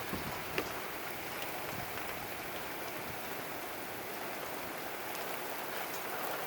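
Heavy rain falling steadily, an even hiss with scattered individual drops pattering close by and one sharper tap about half a second in.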